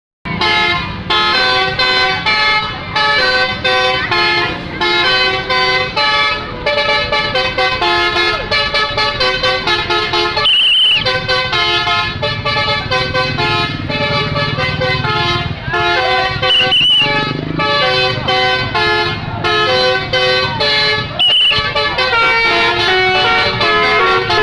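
Bus 'telolet' musical horn: a multi-tone horn playing a quick tune of short, stepping notes over and over. A low rumble runs under the middle part, and three brief high squeals cut through.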